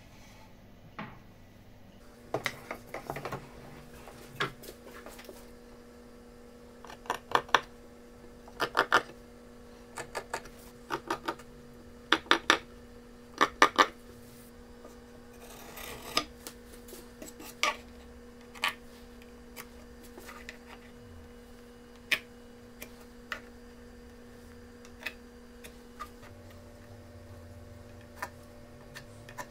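Pine boards handled and set down on a wooden workbench: sharp wooden clacks and knocks in clusters over the first half, then sparser light taps, with a faint steady hum underneath.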